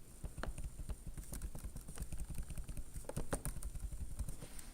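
Irregular light clicks and taps, several a second, like typing on a computer keyboard.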